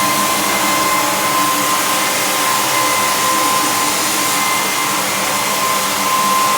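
Floor sander running steadily on timber floorboards: a constant motor whine over a loud hiss.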